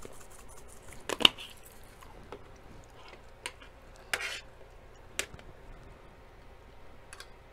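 Red pepper flakes shaken from a small spice jar, with a loud sharp click about a second in, then a few scattered sharp clinks of a metal spoon and fork against a plate.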